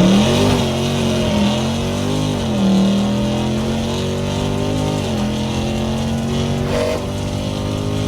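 Car engine revving in two held rev-ups: it climbs at the start, falls back about two and a half seconds in, then climbs again about five seconds in and holds steady.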